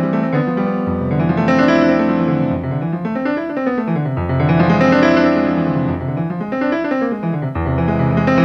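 Ensoniq ASR-10 sampler playing a piano-like sampled keyboard sound, recorded direct from its outputs. Notes run up and down in rising and falling phrases over a deep held bass note that comes in about every three seconds.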